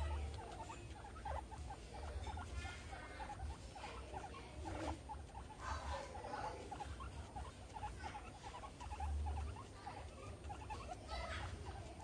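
Guinea pigs making short, quick squeaks, several a second, with bits of rustling and a low rumble underneath.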